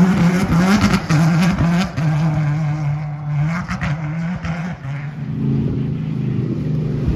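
Off-road rally car's engine revving hard, its pitch rising and dropping several times with throttle and gear changes, then holding steadier. From about five seconds in a lower, steadier engine note takes over.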